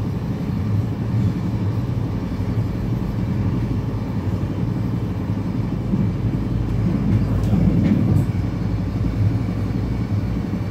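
Steady low rumble of a moving commuter train, heard from inside the passenger car, with a couple of faint clicks about three-quarters of the way in.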